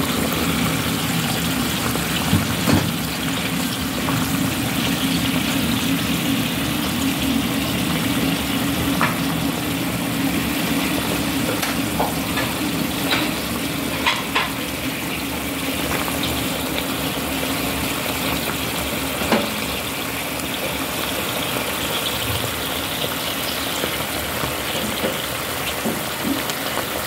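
Sardine and tomato sauce simmering and bubbling in a pan, with bottle gourd slices added, over a steady low hum. A few light knocks come about two seconds in, around the middle and later.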